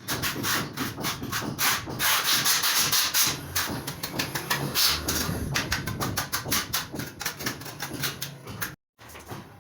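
Hand tool scraping and rubbing against wet mortar or tile in quick repeated strokes, cutting off briefly near the end.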